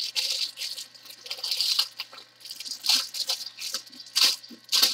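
Small plastic bags of diamond-painting beads crinkling as they are handled and opened, in irregular crackly bursts with a few louder crackles.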